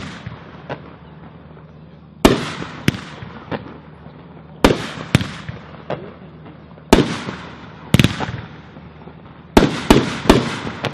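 Booming Bulldog 'Second Amendment' firework going off in a run of aerial shots, one group about every two and a half seconds. Each group is a sharp bang that rings on briefly, followed by one or two lighter reports.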